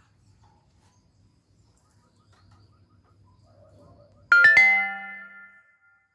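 A two-note electronic chime, like a doorbell or phone notification, sounding about four seconds in: two quick notes that ring out and fade over about a second and a half.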